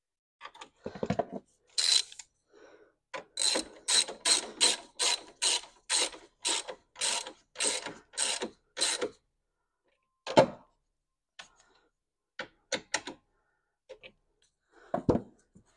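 Hand socket ratchet running a nut down onto a bolt: a steady run of about a dozen ratcheting strokes, roughly two a second, then a few scattered clicks and knocks near the end.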